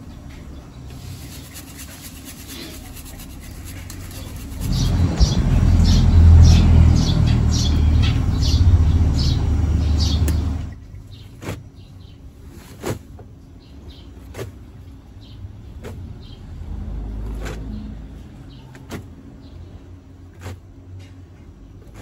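Handling sounds as laundry is loaded into a top-load washing machine tub. A loud rumbling rustle with quick repeated strokes starts about four seconds in and lasts about six seconds, followed by a few short light knocks.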